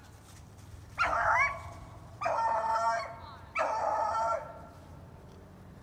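Beagle baying three times in quick succession, each a drawn-out, ringing bawl of about half a second to a second: a hound giving voice while trailing a rabbit on its scent.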